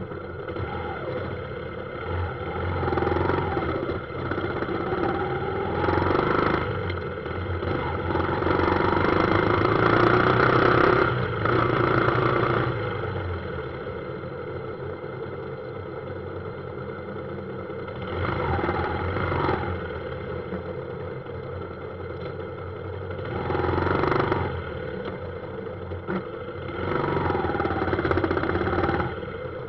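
A motorbike riding through dense scooter and car traffic: engines running and revving. The sound swells as the bike speeds up, loudest from about eight to thirteen seconds in, with shorter surges three more times near the end.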